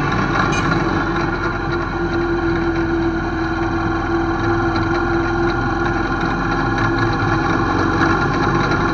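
Engine of the motor vehicle being ridden in, running steadily as it drives along a concrete road, with road noise. The hum holds level with no pauses.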